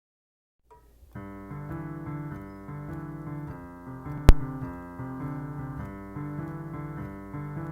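Piano music begins about a second in, a pattern of notes repeating over a steady bass. About four seconds in, a single sharp click rises well above the music.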